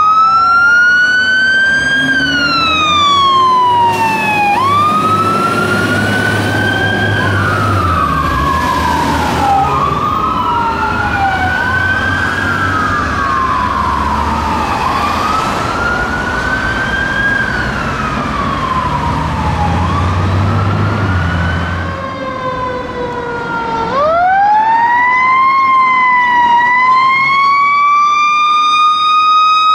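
Fire engine sirens wailing, rising and falling about every two and a half seconds, with two sweeps overlapping out of step, over the truck engine's low rumble. Near the end a siren winds up sharply and then holds a high, nearly steady tone.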